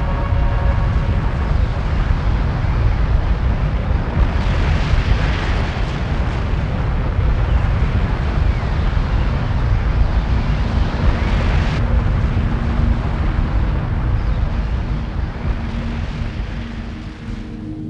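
Strong storm wind rushing and rumbling heavily across the microphone. The hiss thins out abruptly about twelve seconds in, and a faint music tone comes in near the end as the wind eases.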